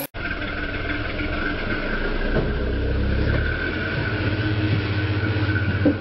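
Modified Jeep rock crawler's engine running low and steady under load as it climbs a rock ledge, swelling a little twice, with a faint steady whine over it. A short sharp knock near the end.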